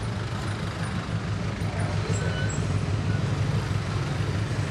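Steady low motor rumble with a noisy haze of street background, like engines running nearby.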